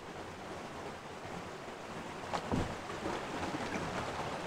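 Canoe paddling along a river, with water washing around the canoe and wind on the microphone; a louder thump a little past halfway.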